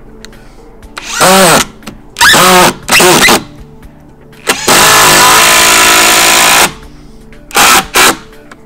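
Ryobi 18V One+ brushless impact driver driving a screw into a wooden deck rail in bursts, hammering loudly: three short runs, then one long run of about two seconds, then two quick blips near the end.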